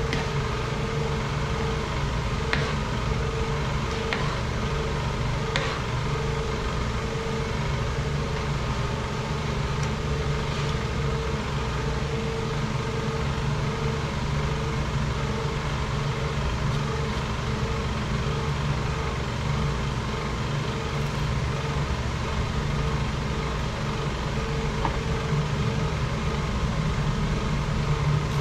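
Steady machine hum with a low drone and a fainter, higher steady tone, unbroken throughout, with a few light clicks of a ladle against a metal cooking pot in the first six seconds.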